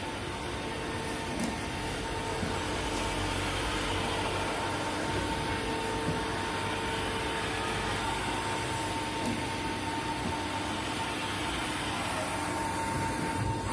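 V-Tec VMC-1270 CNC vertical machining centre running: a steady machine whir and hiss carrying a steady high tone, with a lower tone that fades out about eight seconds in.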